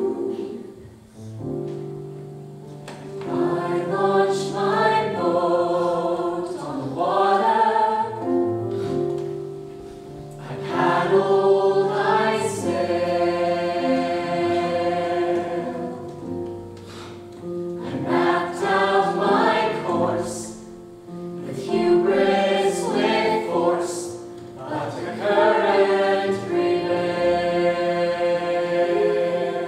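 Mixed ensemble of young voices singing a musical-theatre song together in sung phrases a few seconds long, over sustained instrumental accompaniment.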